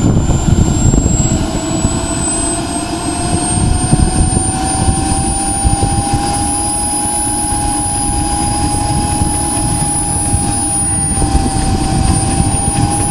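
Small jet turbine engine of a radio-controlled F-16 model running on the ground: a whine that climbs slightly over the first few seconds, then holds steady at idle over a rough rushing roar.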